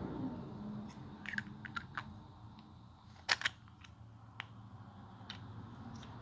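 Small plastic clicks and taps as 3D-printed engine parts are handled and fitted together, with a sharper double click about three seconds in.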